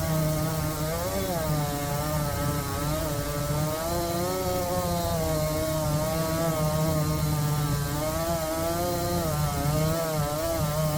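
Small engine running continuously under load, its pitch wavering up and down throughout as the load changes.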